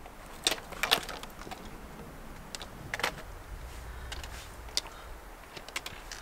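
Scattered, irregular clicks and taps of trekking-pole tips and hiking boots striking rock on a rocky mountain trail, over a faint quiet background.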